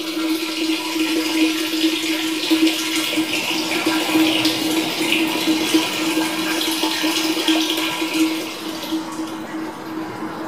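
Water pouring in a steady stream from a PVC inlet fitting into a blue 55-gallon plastic barrel, splashing into the water inside and easing off near the end. A steady low hum runs underneath.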